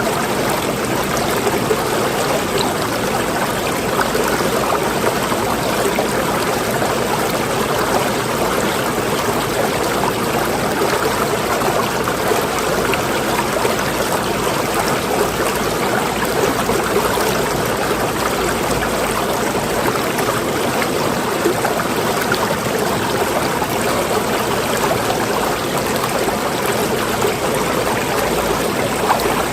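Water flowing steadily, an even, unbroken sound with no pauses or changes in level.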